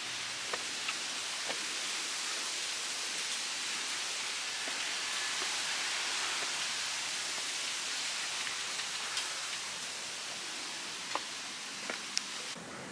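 Steady rain falling on trees and stone paving, an even hiss with a few sharp drops ticking close by.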